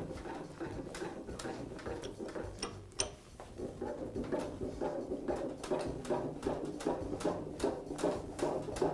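Wilton bench vise's new spindle screw being cranked in by its sliding T-handle. A steady run of light metallic clicks and rattles comes as the handle turns and the greased screw threads draw the jaw in, with one sharper click about three seconds in.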